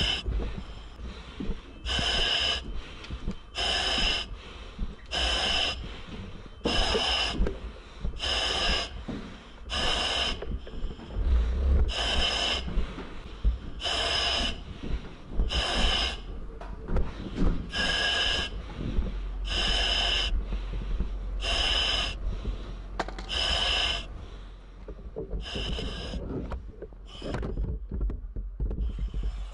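A firefighter breathing hard through a self-contained breathing apparatus mask, with a hiss from the regulator on each breath, about one breath every second and a half in a steady rhythm.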